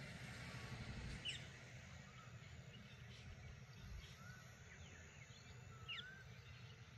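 Morning birds calling faintly over a steady low rumble of wind and surf. There are a few short, sweeping calls, with two brief rising whistles in the second half.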